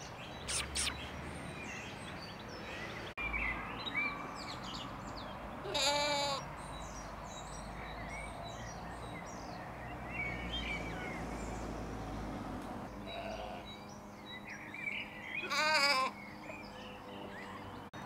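Sheep bleating twice, each a short wavering call, about ten seconds apart, with small birds chirping in the background.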